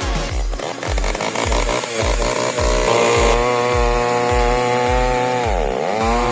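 Chainsaw engine running at high revs, its pitch dipping sharply and recovering near the end as it bogs under load, over a steady low thumping beat about twice a second.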